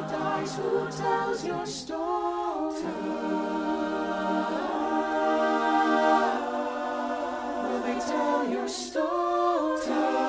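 Choir singing slow, held chords with little or no accompaniment, the chords shifting every few seconds and word consonants hissing through now and then.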